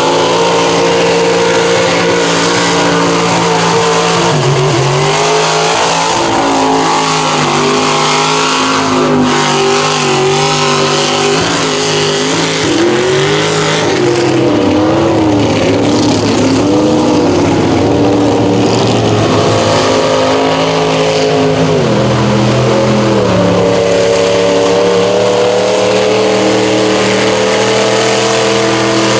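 Lifted mud trucks' engines revving hard while their big mud tyres spin through a mud pit, throwing mud. The engine pitch climbs and falls with the throttle, then drops and runs steadily near the end.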